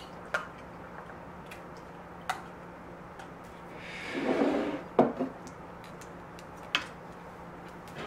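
Tableware handled on a table: a few light clinks of a spoon and cutlery against a glass and dishes, and about halfway a brief scrape as a wooden bowl and cutting board are slid across the table, ending in two knocks.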